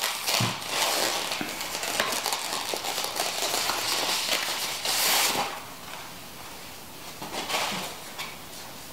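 Crinkly wrapping bag rustling and crackling as a camera body is unwrapped from it, loudest for the first five seconds or so, then dropping to a few soft rustles.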